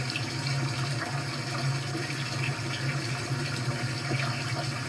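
Recording of running water played back through computer speakers: a steady, even rush of water.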